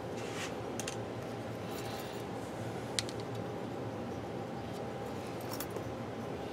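Light clicks and scrapes of a small gauge touching the strings and pickup cover while the pickup height of an electric guitar is measured, with one sharp click about three seconds in, over a steady background hum.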